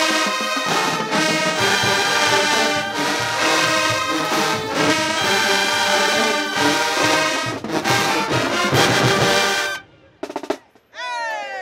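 Marching band brass section of trumpets and sousaphones playing loud sustained chords over drumline percussion, cutting off sharply about ten seconds in. A shout with a gliding pitch follows near the end.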